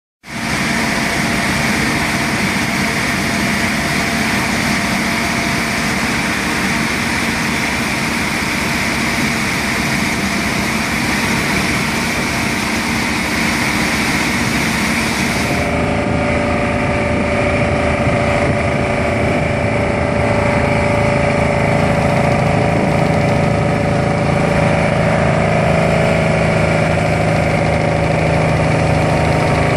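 Bruce SGV-400 vibratory pile hammer running while it drives a steel sheet pile, a steady loud mechanical drone mixed with the engine of its hydraulic power pack. About sixteen seconds in, the sound shifts to a deeper hum with less hiss.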